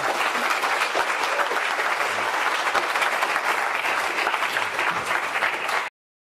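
Audience applauding, a dense steady clapping that cuts off suddenly near the end.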